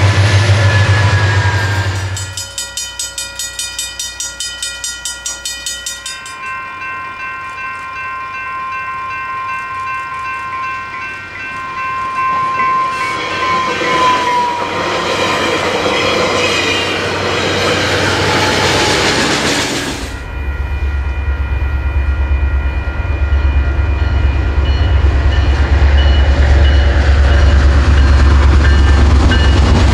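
Diesel-hauled bilevel commuter trains passing: a train horn sounding for several seconds with its pitch dropping as it goes by, and the cars clattering over the rails. From about two-thirds of the way in, a locomotive engine's deep rumble is the loudest sound.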